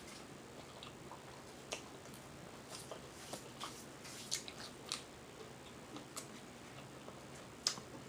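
A person chewing food with faint, scattered wet mouth smacks and clicks, about eight of them at irregular intervals.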